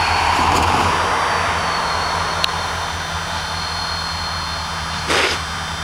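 Diesel locomotives running steadily as they move away, slowly fading, with a sharp click about two and a half seconds in and a short rush of noise about five seconds in.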